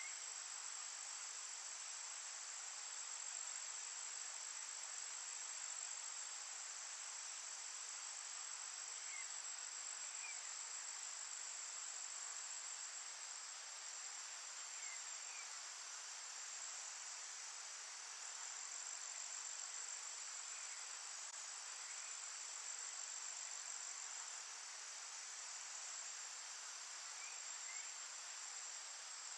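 Steady, high-pitched chorus of insects, a continuous shrill drone, with a few faint short chirps in pairs every several seconds.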